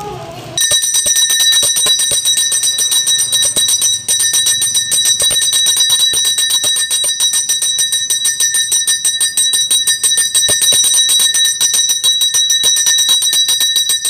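Small brass puja hand bell (ghanti) rung fast and without pause, many strokes a second over a steady bright ring. It starts about half a second in.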